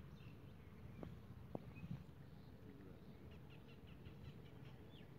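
Near-silent pond-side ambience: a steady low rumble, three soft clicks between about one and two seconds in, and a quick run of faint bird chirps after the middle.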